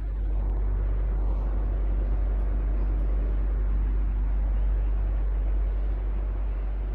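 Electric fan running steadily: an even rush of air over a strong, constant low hum.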